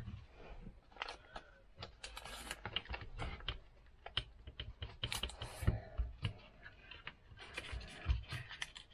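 Small wooden parts clicking and knocking against each other as they are handled and fitted together: a run of irregular light taps and clacks.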